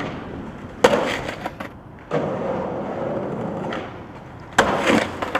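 Skateboard hitting the ground hard about a second in and clattering, then its wheels rolling steadily on pavement. Near the end comes a second hard impact of the board landing, with rattling.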